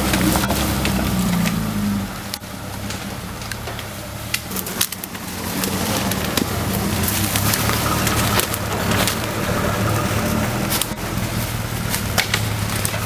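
Off-road 4x4 engine running as it crawls through brush, with dry branches and twigs cracking and snapping. The engine drops away about two seconds in and picks up again about three seconds later.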